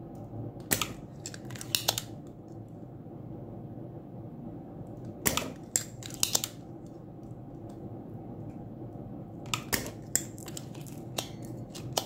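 Spring-loaded desoldering pump (solder sucker) being cocked and fired over the pins of a circuit board's power IC: sharp snapping clicks in three short clusters, near the start, in the middle and near the end, over a low steady hum.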